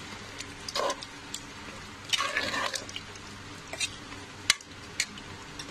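A spoon stirring wet rice and masala in water inside a pressure cooker, giving short bouts of sloshing and squishing, with two sharp clicks near the end.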